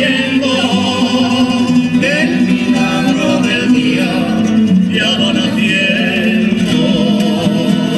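A folk group performing live: a man and women singing together into microphones over acoustic guitar and a small plucked lute, amplified through a PA.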